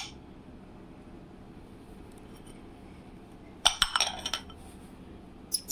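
Cut-glass tableware clinking as it is handled: a quick run of several ringing chinks about two-thirds of the way in, and one more short click near the end.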